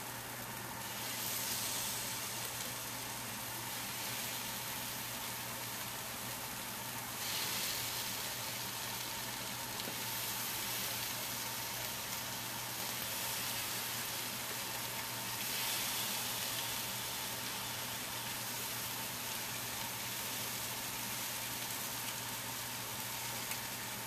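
Marinated chicken wings sizzling on a hot stovetop griddle pan as skewered wings are laid down. The sizzle swells three times as fresh pieces go on.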